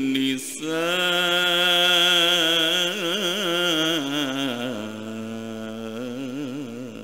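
A man reciting the Quran in a melodic, sung style, drawing out the word 'an-nisa'' in one long ornamented note. The note wavers and steps down in pitch about two thirds of the way through, then breaks off near the end.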